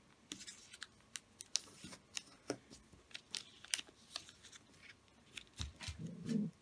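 A sheet of origami paper being folded and creased by hand: quiet, irregular crinkles and crackles as the edges are brought to the centre and pressed flat.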